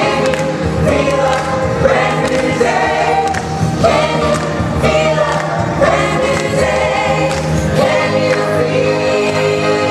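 A stage musical's cast singing together in chorus over amplified instrumental music with a steady bass line.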